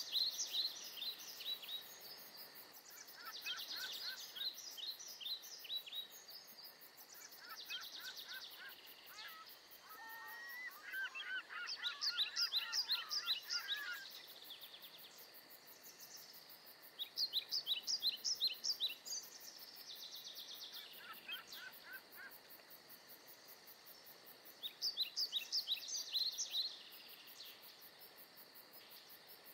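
Songbirds singing: short phrases of rapid high notes repeated every few seconds, with a lower, warbling song from a second bird about ten to fourteen seconds in.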